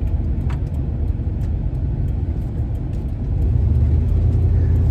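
A van's engine and road rumble while driving, picking up and growing louder about three and a half seconds in as the van accelerates.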